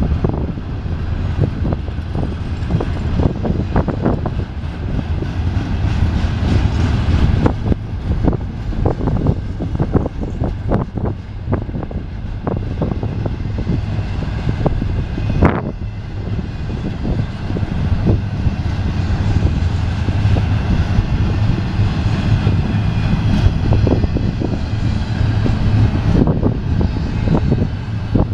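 Empty double-stack well cars of a freight train rolling past: a steady low rumble of steel wheels on the rails, with irregular clanks and clicks as the trucks pass, and a brief high-pitched squeal about halfway through.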